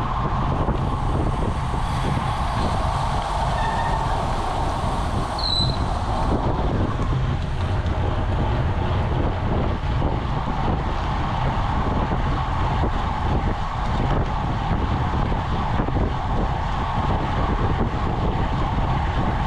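Wind buffeting a bike-mounted camera's microphone at racing speed, over the hiss of road bike tyres on asphalt in a pack of riders. A brief high squeak sounds about five seconds in.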